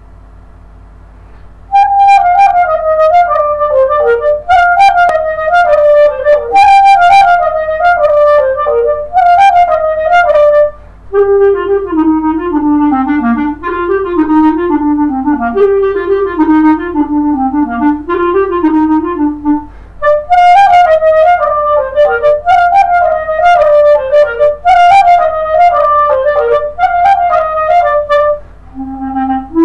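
Solo clarinet playing a melody of repeated falling phrases, starting about two seconds in. The middle part, from about eleven seconds, is played in a lower register before the higher phrases return near twenty seconds.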